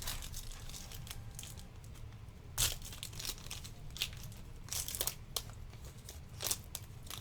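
Trading-card pack wrapper crinkling and tearing open as cards are handled, with a few scattered sharp crackles.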